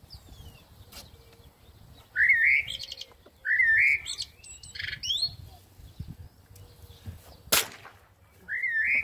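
Bird calling four times, each a short rising whistled phrase with a buzzy trill. About seven and a half seconds in comes the single sharp crack of a pellet gun shot.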